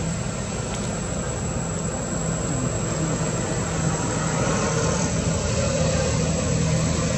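A steady engine drone with a low rumble, slowly growing louder.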